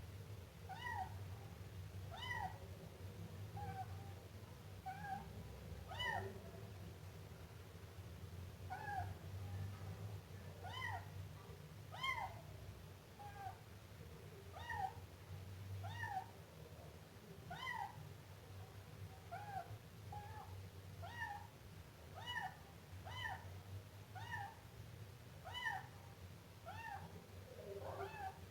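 Siamese kitten meowing over and over, short high meows about one a second, each rising then falling in pitch, over a steady low hum.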